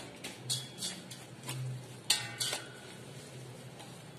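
Wire whisk beating curd, oil and country sugar in a stainless steel bowl, the wires clinking and scraping against the bowl in about seven irregular strokes, most of them in the first two and a half seconds.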